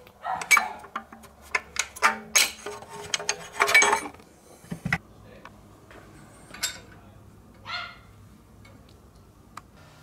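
Hand tools and metal engine-bay parts clinking and clattering irregularly as a heat-shield bracket is unbolted and worked free. The clinks come thick in the first few seconds, then thin out to occasional single clicks.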